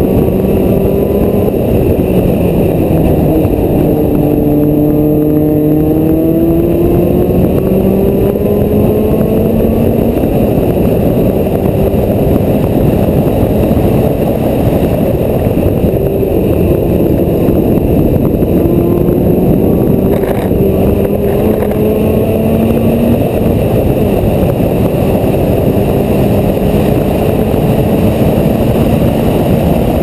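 A 1.8-litre four-cylinder Mazda MX-5 race car engine at racing speed. Its pitch dips about four seconds in, then climbs steadily, breaks at a gear change around the middle and climbs again. Heavy wind and road noise run underneath.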